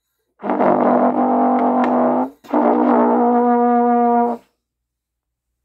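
Two long held notes on a brass instrument, each steady in pitch, the second following right after the first; then the sound stops.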